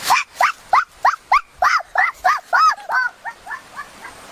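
An animal crying out in a rapid string of short squeals that rise and fall in pitch, about three a second, growing fainter after about three seconds.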